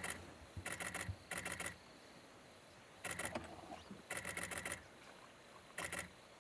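Camera shutter firing in rapid continuous bursts: several quick runs of clicks, each under a second long, with short pauses between them.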